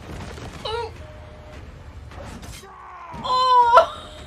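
A high-pitched wailing scream that rises and is loudest about three and a half seconds in, with a shorter cry under a second in.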